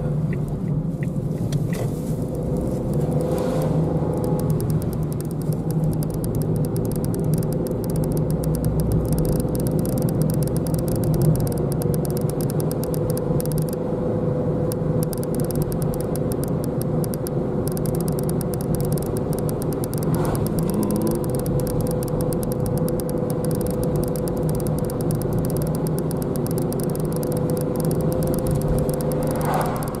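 Car cabin noise while driving, heard from inside the car: a steady low road and engine rumble with a steady humming tone over it.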